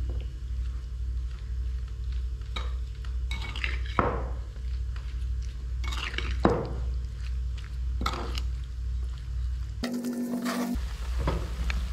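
A metal spoon scraping and clinking against a clay bowl while it mixes raw chicken pieces with ground spices for a marinade, in irregular strokes over a steady low hum.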